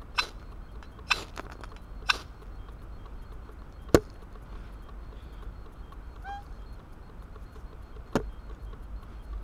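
A ferrocerium rod is scraped three times along the back of a small camping axe, each a short rasping strike about a second apart. A single sharp click comes about four seconds in, the loudest sound, and another sharp strike comes near the end.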